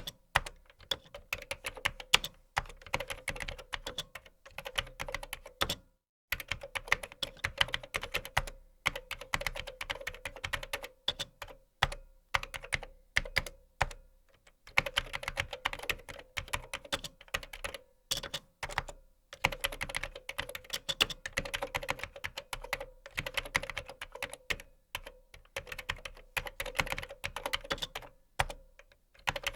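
Typing on a computer keyboard: rapid key clicks in long runs, broken by brief pauses.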